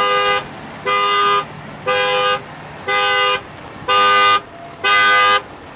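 A two-tone car horn honking in a steady rhythm, six half-second blasts about a second apart.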